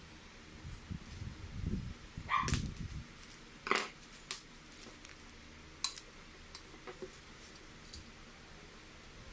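Handling and assembly noise from the parts of a small electric cooker: low rubbing and bumping for the first few seconds, then a scatter of sharp clicks and knocks, the loudest two a little over a second apart.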